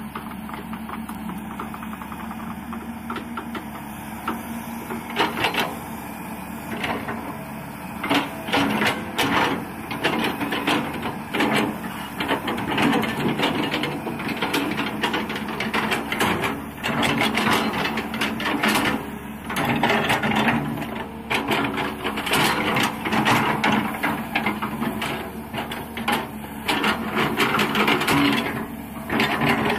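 Kobelco hydraulic excavator working soil: its diesel engine running steadily under irregular mechanical clattering and knocking that starts about five seconds in and grows denser.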